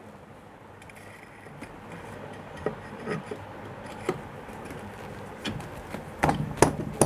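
Metal pump casing of a jet pump being pushed and worked onto the motor body by hand: light scraping and a few small clicks, then several sharper knocks near the end as it seats.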